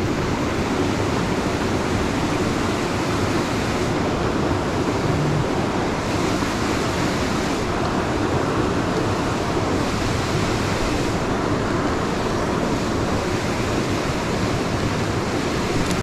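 Small creek's water rushing steadily over rocks, an even hiss that does not let up.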